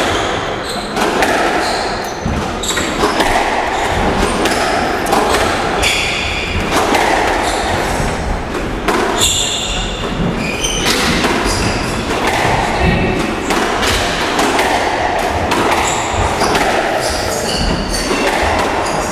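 Squash rally: the ball thudding off rackets and the court walls in an irregular run of sharp knocks, with a few short high squeaks.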